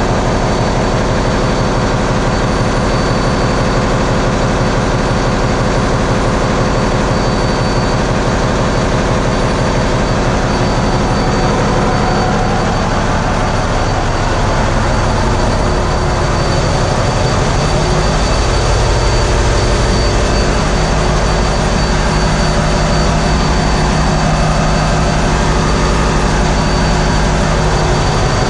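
Ship's engine room at sea: the large diesel main engine and the diesel generator sets running together in a loud, steady din, with a thin high whine above it. The low drone shifts and grows stronger about halfway through.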